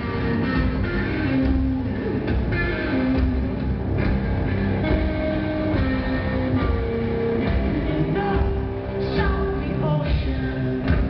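A live rock band plays, with electric guitar and a voice singing over the steady band sound.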